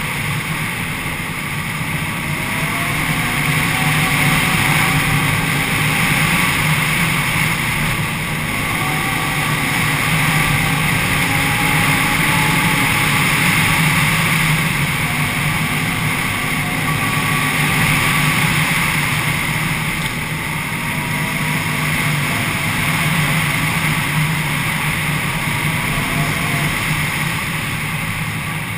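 Can-Am Renegade 800 ATV's V-twin engine running under way at speed, the engine note swelling and easing every few seconds with the throttle.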